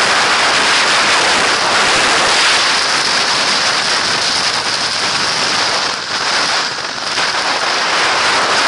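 Storm-force mountain wind blowing across an action camera's microphone, a dense steady rushing hiss with wind-driven snow pelting the camera, easing briefly about six to seven seconds in.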